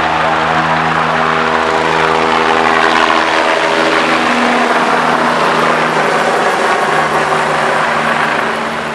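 Helicopter flying low overhead, its rotor and engine running loud and steady, easing off a little near the end as it moves away.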